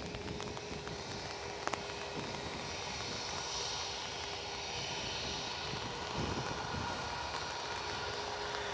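Airbus A320-200 jet engines running with a steady roar and a high whine that swells somewhat in the middle.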